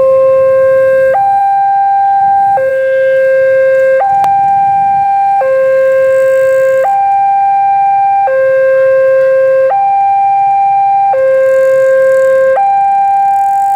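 Electronic two-tone warning siren, alternating evenly between a higher and a lower tone, each held for about a second and a half.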